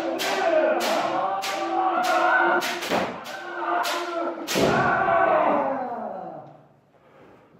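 Bamboo shinai striking men (head armour) in quick succession, about two hits a second, over long kendo kiai shouts from several practitioners. The strikes and shouts die away about six seconds in.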